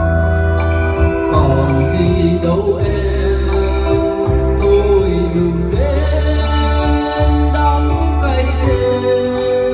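Music with a singing voice played loud through a PA rig of tall speakers stacked on dual subwoofers, with deep sustained bass notes that change about once a second under the melody.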